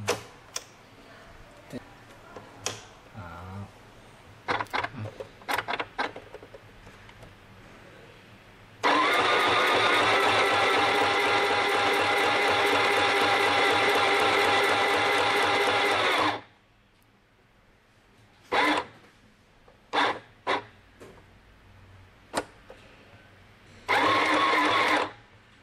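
UKICRA UFR-611/613 household sewing machine running at a steady speed, stitching a buttonhole under the buttonhole presser foot for about seven seconds, then a second short run of about a second near the end. Scattered clicks and taps come before and between the runs.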